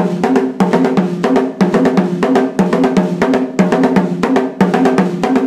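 Drums struck with sticks in a steady, driving steel-band engine-room groove, about four to five strokes a second, with a repeating pattern of low ringing pitched notes under the strokes.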